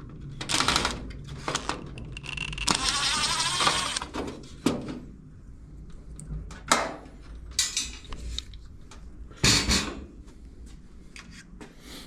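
Hand-work noises from taking out a GE electric dryer's drum light: scattered clicks, knocks and short scrapes of a tool on metal and plastic parts. There is one longer, denser noisy stretch of about a second and a half, about three seconds in.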